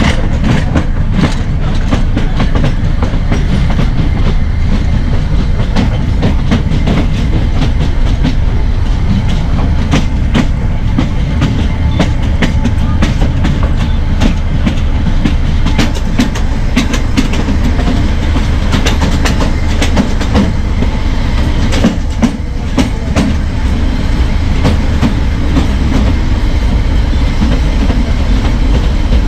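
Narrow gauge train running on the track, heard on board: a steady, loud low rumble with irregular clacks and rattles of the wheels over the rails.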